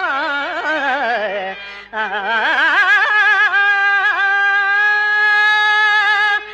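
A singer in Carnatic style drawing out a verse without clear words: a wavering, heavily ornamented line falls over the first second and a half, breaks off briefly near two seconds, then climbs back and settles into a long held note that stops just before the end.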